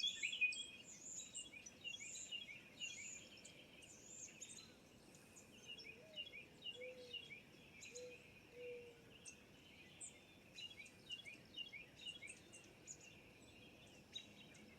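Faint chorus of songbirds chirping and singing all through, with a mourning dove's few low, soft coos in the middle.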